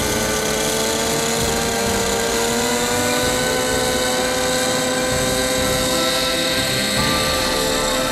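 An O.S. 55HZ-H two-stroke glow (nitro) engine in an RC helicopter, running under load as the rotor spools up. Its pitch climbs slowly over the first few seconds, then holds steady.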